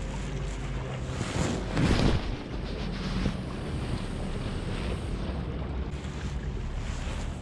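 Wind buffeting the microphone over sea waves washing against the shore, with a faint steady low hum underneath. A louder rush of wind or surf comes about two seconds in.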